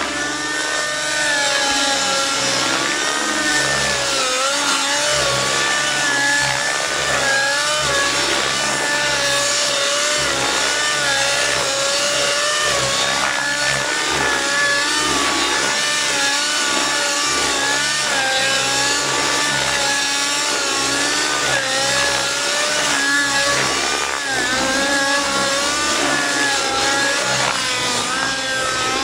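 Nitro glow engine of an Outrage Velocity radio-controlled helicopter running hard through aerobatic flight, its pitch wavering up and down as the load changes.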